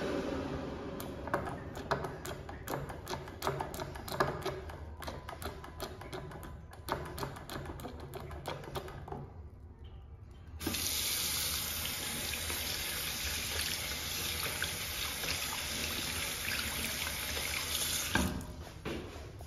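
Tap water running into a porcelain sink while hands are washed in the stream: irregular splashing and patter at first, then a steadier rush of water from about ten seconds in as a hand is rinsed under the faucet, falling away near the end.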